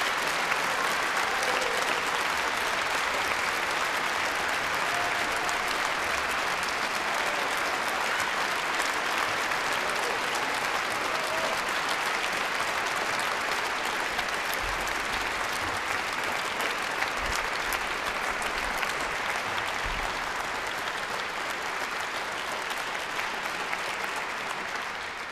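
Audience applauding: steady, dense clapping from a full hall, easing off slightly near the end.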